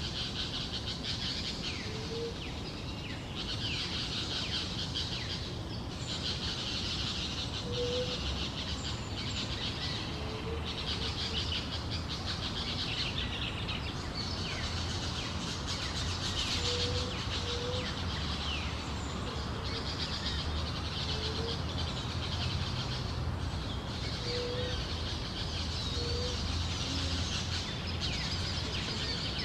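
A forest chorus of many small birds chirping and singing, swelling and fading in waves every couple of seconds. Short, low whistled notes are scattered through it, over a steady low background rumble.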